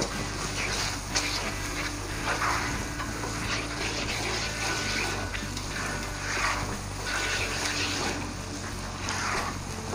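A spatula stirring thick peanut-and-sesame masala gravy in a kadai as it cooks: a wet swishing scrape with each stroke, coming every second or two, over a steady low sizzle from the pan.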